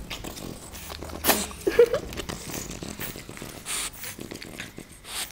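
Short, breathy, noisy sounds from French bulldogs at close range: a couple of bursts about a second and two seconds in, the second with a brief squeak-like note, and another near four seconds.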